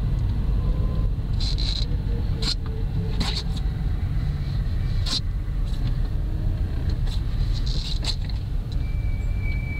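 Lada Kalina heard from inside while driving: a steady low road and engine rumble with a few sharp clicks. Near the end a steady high-pitched brake squeal sets in, the factory brake pads singing against the discs as the brakes are applied.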